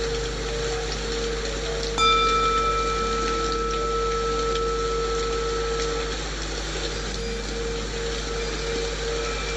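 A singing bowl is struck once about two seconds in and rings for a few seconds as it fades, a cue in the 4-4-8 breathing count. Under it run a steady hiss of rain white noise and a low sustained hum.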